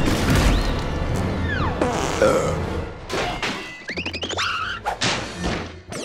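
Cartoon soundtrack music mixed with slapstick sound effects: crashes and thuds, and a high sliding tone that falls in pitch about a second and a half in.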